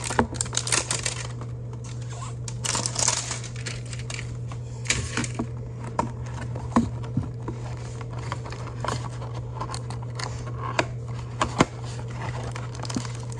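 Cardboard hanger box of trading cards being handled and opened by hand: scattered taps, scrapes and crinkles of cardboard and plastic wrapping, over a steady low hum.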